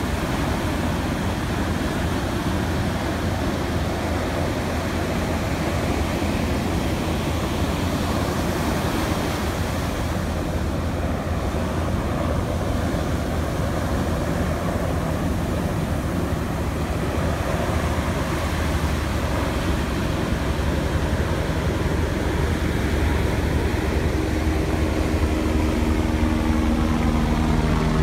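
Ocean surf breaking and washing up the sand, a steady rush with a heavy low rumble. In the last few seconds an engine hum joins in and grows louder.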